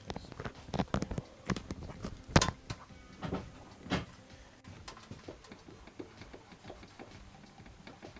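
Small knocks and clicks from a Honda Civic Ferio's steering, heard as the steering wheel is rocked back and forth: a slight knock in the newly fitted used steering rack. Several sharper knocks come in the first four seconds, the loudest about two and a half seconds in, followed by fainter ticks.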